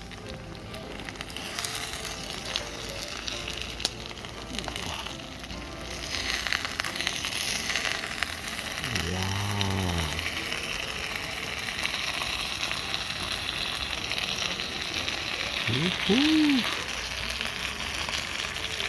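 Gyoza sizzling in a hot pan, a steady frying hiss that grows fuller partway through. A short hum-like voiced sound rises and falls twice, the second one louder.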